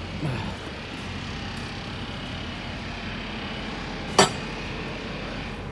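A single sharp metallic clank from the truck's tilt hood about four seconds in, over a steady hiss and low hum.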